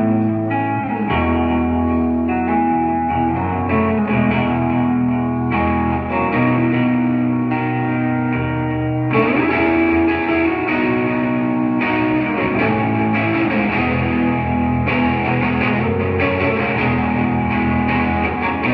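A rock band playing an instrumental passage live, with electric guitars over bass. It becomes fuller and brighter about halfway through.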